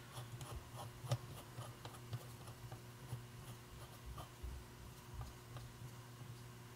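Faint, irregular clicking of a red-handled nut driver turning a small nut off a stud on the back of a steel gauge casing, over a steady low hum.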